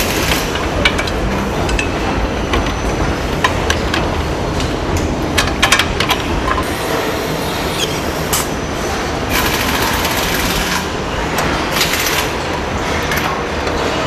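Car assembly-line noise: a steady machinery rumble with sharp metallic clicks and clanks as parts are fitted, bunched about five to six seconds in. A hand-held nutrunner tightening bolts adds a couple of longer hissing bursts, the first about nine seconds in.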